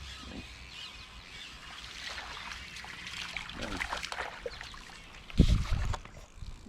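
Creek water splashing and trickling as a hooked fish is brought in, with a brief low thump about five and a half seconds in.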